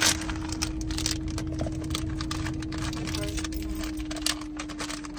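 Rustling and light crackling of snack packaging being handled, many small irregular clicks, over a steady low hum.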